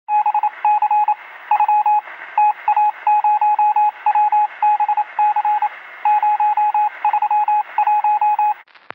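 Morse code: a single steady tone keyed on and off in short and long elements (dots and dashes), over a hiss as heard through a radio. It stops shortly before the end.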